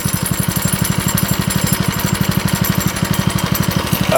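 Go-kart's small engine running steadily under way, a loud, rapid, even putter.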